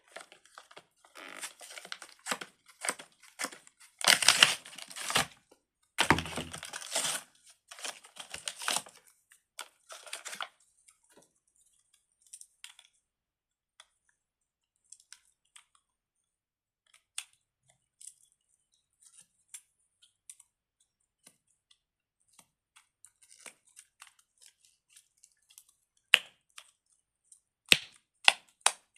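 Plastic packaging crinkling and tearing in bursts through the first ten seconds or so, loudest around four and six seconds in. Scattered light clicks of plastic fidget toy pieces follow, with a few sharp snaps near the end.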